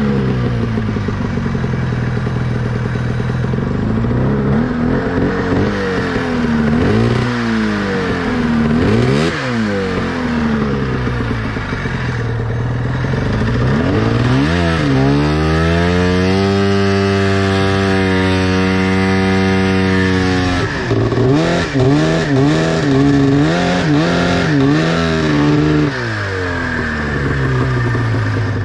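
Snowmobile engine revved up and down again and again as the sled rocks to work free of deep snow, then held at high revs for about five seconds as it ploughs forward through the powder. Several more quick revs follow before the engine settles to a steadier, lower run.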